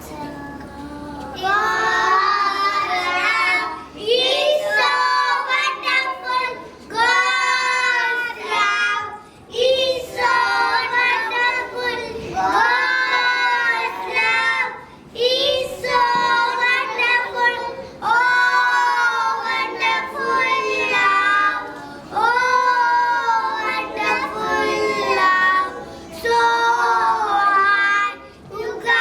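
Young children singing a song together in a large hall, in phrases of about two seconds with short breaks between them.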